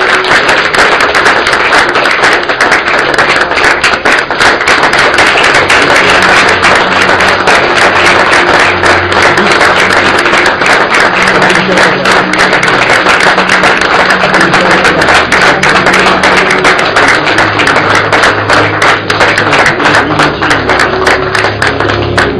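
Audience applauding: loud, sustained clapping.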